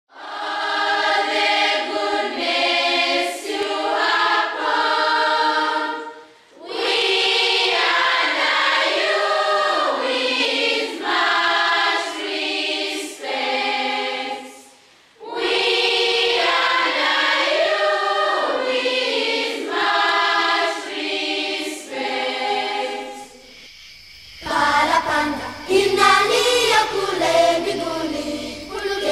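A choir of girls' voices singing unaccompanied in harmony, in phrases broken by short pauses. About 24 seconds in, a different song takes over, with a low bass line under the voices.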